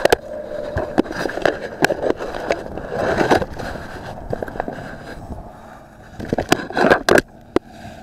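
Small toy quadcopter's motors humming steadily while a hand grabs the craft, with knocks and scraping of fingers on the strapped-on action camera. The hum drops sharply about seven seconds in.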